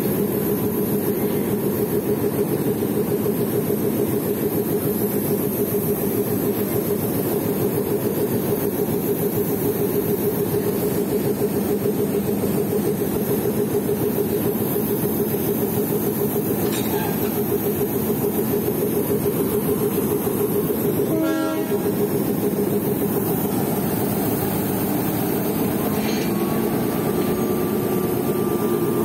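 Class M4 diesel locomotive's engine idling with a steady drone, heard close by during coupling to the coaches. About three-quarters of the way through comes a brief, rapid metallic rattle.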